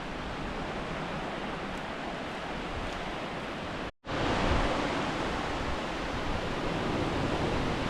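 Ocean surf washing onto a sandy beach: a steady rush of noise that drops out for a moment about four seconds in and returns a little louder.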